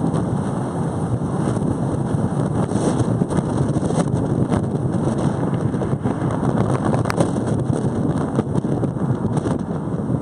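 Wind buffeting the microphone of a camera mounted on the outside of a moving car, over steady road noise, with a few brief crackles.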